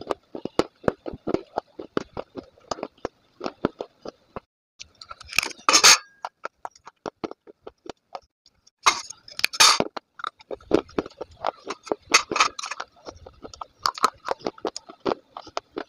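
Close-up crunching and crackling of a person chewing brittle pieces of a fired clay cup, with two louder bursts of crunching about five and nine seconds in.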